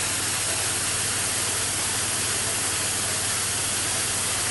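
Discharge water from a roll-off container filter pouring out of a 4-inch hose into a drain: a steady rushing hiss, with a low steady hum underneath.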